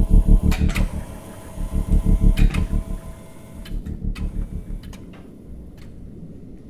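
A low mechanical buzz pulsing rapidly, loud in two spells over the first three seconds with a few sharp clicks, then fading to a faint low hum.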